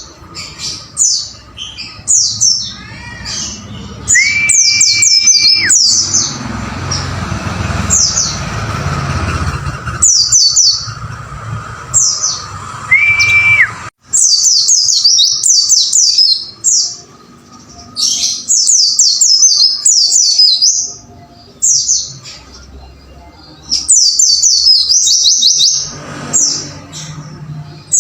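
White-eye (pleci) singing: fast, high, twittering runs of chirps in repeated bursts, with a long level whistle a few seconds in and a shorter one near the middle. A stretch of background hiss runs under the song through the first half.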